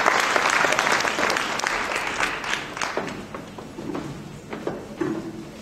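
Audience applauding, dying away after about three seconds into a few scattered claps.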